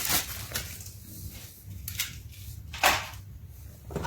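Handling noises as accessories are taken out of a robot-vacuum box: a few light clicks and knocks, the sharpest a little under three seconds in, over a low steady hum.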